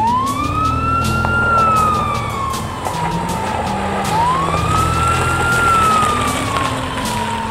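Ambulance siren on a slow wail: two rise-and-fall cycles, each rising quickly and then falling slowly over about four seconds.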